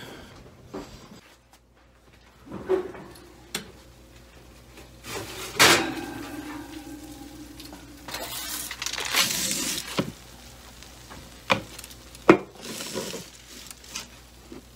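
Metal baking sheet knocking and scraping as it is taken out of the oven with an oven mitt and set down on the stovetop: a series of clanks, the loudest about six seconds in, with a stretch of scraping around nine seconds in.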